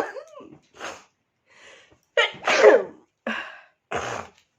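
A woman sneezing, brought on by tickling her nose. The loudest sneeze comes a little past two seconds in, and shorter noisy breaths fall between and after the sneezes.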